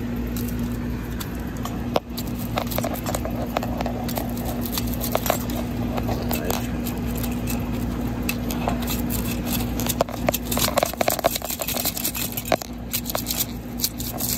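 A metal spiral stake jabbing and grinding into a smashed flip phone's screen on concrete: a busy run of clicks, crunches of cracked glass and plastic, and metal scraping, busier from about ten seconds in. A steady low hum runs underneath.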